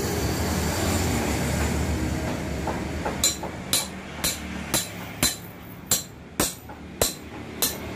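Hammer blows on a steel ring spanner fitted to the top nut of a removed front shock absorber strut, to shock the nut loose. The blows come about twice a second from about three seconds in, each with a short metallic ring.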